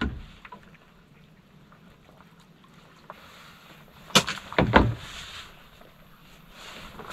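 Knocks and clatter of things being handled on a boat: one thump at the start, then a quick cluster of sharp knocks about four seconds in.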